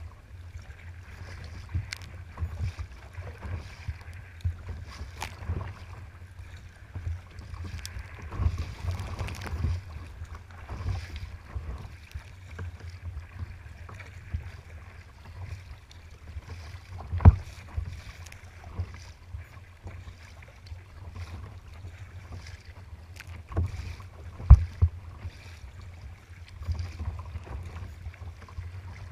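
Choppy water splashing and slapping against a sea kayak's hull, with wind buffeting the microphone as a steady low rumble. Two sharp knocks stand out, one a little past the middle and one about three quarters through.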